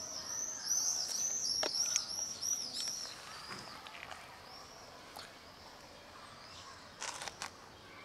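A small bird calling: a quick run of high, arched chirps, about three or four a second, fading out about three seconds in. A few sharp scuffs or clicks come near the end.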